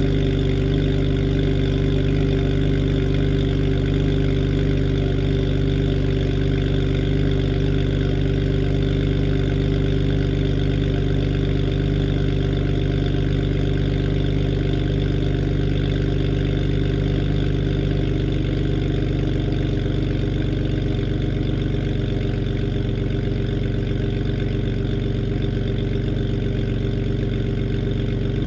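BMW N52B30 3.0-litre straight-six idling steadily after a cold start, heard at the twin tailpipes of a BMW Performance exhaust with the middle silencer removed and a straight midpipe. The engine is on its raised cold idle, which the control unit gradually brings down, and the tone shifts slightly about two-thirds of the way through.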